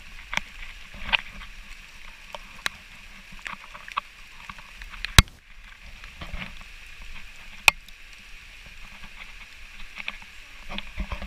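A body-worn camera jostling as its wearer walks a muddy forest trail: scattered scuffs and knocks, with two sharp knocks standing out near the middle, over a steady high hiss.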